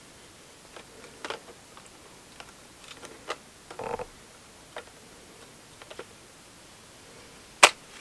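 Small clicks and brief scraping as a Lumix 14-42 mm kit lens is handled and twisted against the Lumix G7 camera body's lens mount, not yet locking in, with one sharp, louder click near the end.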